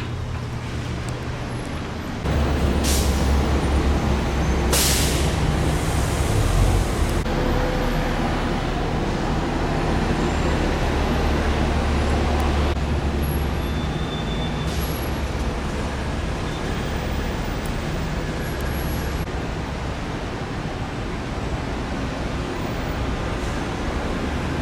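Heavy diesel vehicle's engine rumbling close by, with two short air-brake hisses about three and five seconds in. The rumble eases after about twelve seconds into steady traffic noise.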